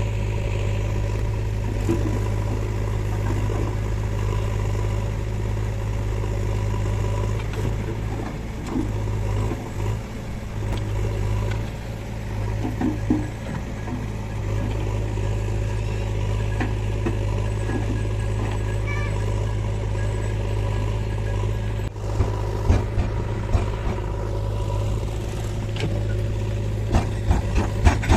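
Heavy diesel engine of a JCB 3DX backhoe loader running steadily at work, dipping briefly a few times. A series of short knocks comes near the end.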